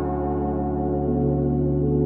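Background music of sustained, ringing synthesizer-like tones, a slow ambient pad that changes chord about a second in and again near the end.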